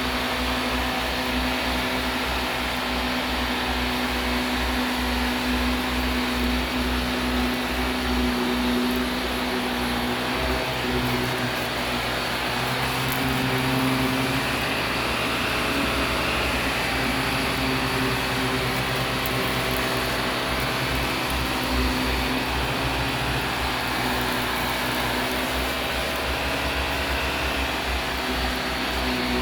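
Vacuum cleaner running steadily, its motor hum wavering a little in pitch now and then.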